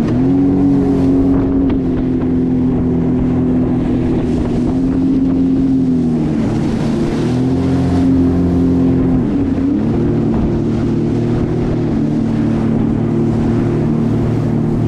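Jet ski engine running at speed, a steady loud motor drone whose pitch sags briefly about six seconds in and again, more sharply, around nine and a half seconds in before climbing back.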